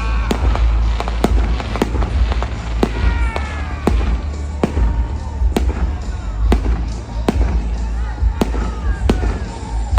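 Fireworks display: a running string of sharp bangs, about one or two a second, over a deep continuous rumble.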